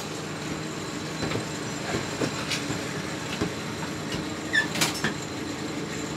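A wire fryer basket clinking and knocking against steel a few times, the loudest knocks about three-quarters of the way in, over a steady machine hum in the kitchen.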